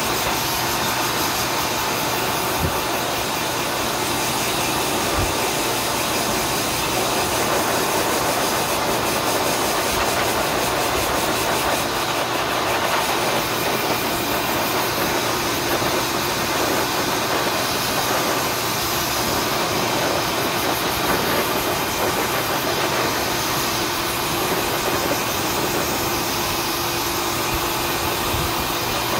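Pet grooming dryer blowing a steady rush of air through its hose onto a puppy's coat, with its motor running evenly.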